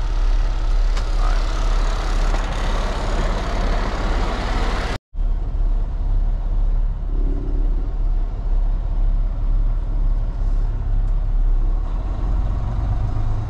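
Semi-truck's diesel engine running with a steady low drone, heard from inside the cab. A louder rushing noise lies over it for the first five seconds and cuts off abruptly at a brief dropout; after that the engine drone goes on more quietly.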